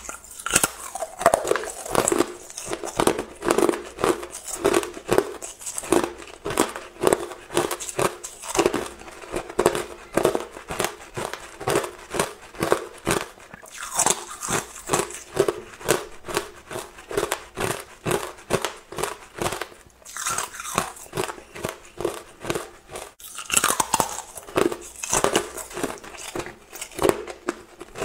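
Clear, hard ice being bitten and crunched between the teeth: a fast run of sharp cracks and crunches, several a second, with a few brief pauses between bites.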